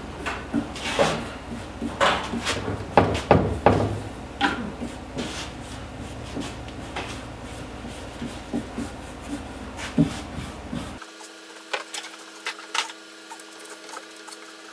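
Irregular scraping, rubbing and knocking of hand work on an elk antler as the stain is scrubbed off, loudest in the first four seconds and lighter after.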